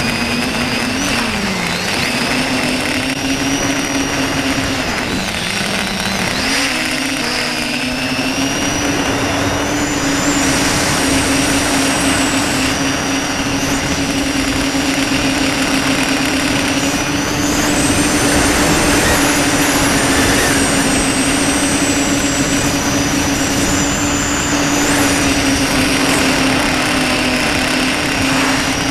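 Tricopter's electric motors and propellers running in flight, heard from the onboard camera: a steady buzzing hum with a high whine over a constant rush of air. The hum dips in pitch briefly twice, about two and six seconds in, then holds steady.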